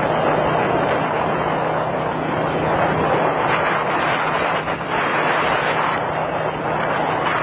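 Wind rushing over the microphone of a moving vehicle at road speed, with a steady engine drone underneath.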